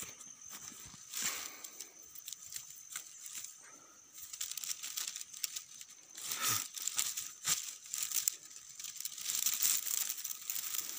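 Dry grass stalks and bare twigs rustling and crackling against the phone as someone pushes through them on foot. The rustling grows louder and busier from about four seconds in.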